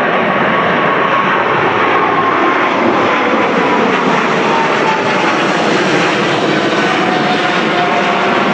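Boeing 777-300ER's two GE90-115B turbofans at takeoff thrust as the airliner climbs out low overhead: a loud, steady jet roar with a faint whine that slides slowly down in pitch as it passes.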